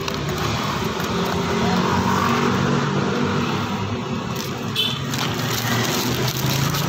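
A motor vehicle engine running steadily, a low even hum, with a short light tap about five seconds in.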